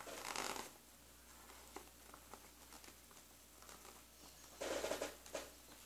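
Sheet of paper rustling and crinkling as it is folded and pressed closed by hand: a short burst at the start, faint crinkles, then a louder rustle near the end.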